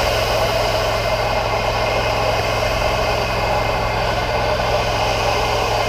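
Pressure washer's engine running steadily with a broad hiss from the spray over its hum, while house wash mix is sprayed on.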